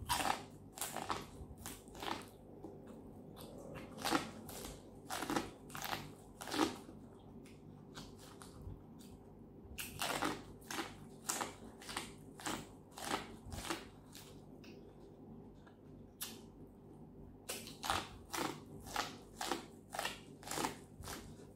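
Biting and chewing cooked corn on the cob: runs of short, crisp crunches as kernels are bitten off the cob, broken by two brief quieter pauses.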